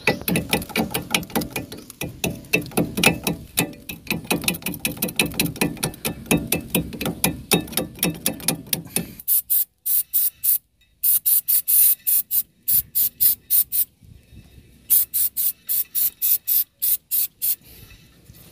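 A fast, even run of metallic clicks, about five a second, from hand work at a rusted wheel hub. About nine seconds in it gives way to an aerosol spray can hissing in many short spurts, in two runs with a brief pause between them.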